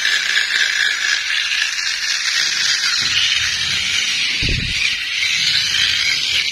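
Motor and plastic gears of a toy stunt truck whirring steadily as its wheels spin, with a few low knocks about three to five seconds in.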